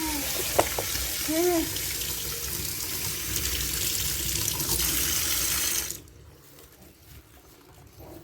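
Tap water running steadily as the car air-conditioning blower fan wheel is washed, shut off suddenly about six seconds in.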